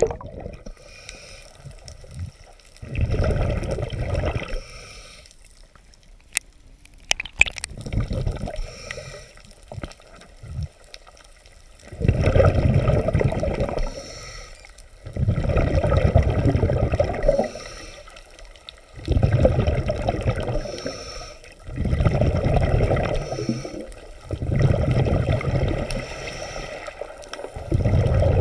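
Water sloshing and gurgling in repeated surges roughly every three seconds, with a few sharp clicks in the first several seconds.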